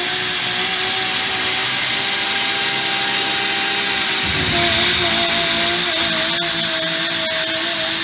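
Portable on-site machining rig running: a steady motor whine over the hiss of cutting, dropping slightly in pitch about halfway through, with a few clicks near the end.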